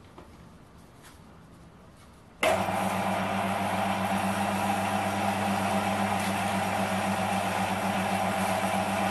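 Bench metal lathe switched on about two seconds in, then running steadily with a low motor hum. Wet-and-dry abrasive paper is held against the spinning brass flywheel in the collet. Before the start, a few light handling clicks.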